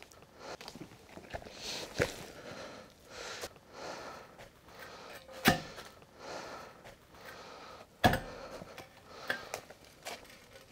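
Stainless steel chimney pipe being handled and set into a cabin roof, giving three sharp knocks about two, five and a half and eight seconds in. Between the knocks come small clicks and soft rustling and shuffling.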